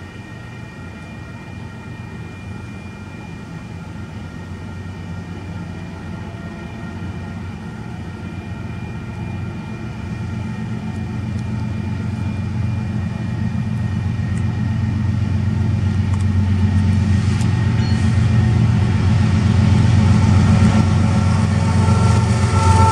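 Two GE ES44AC diesel-electric locomotives approaching at the head of a freight train, their low engine rumble growing steadily louder as they near, with faint steady high-pitched tones above it.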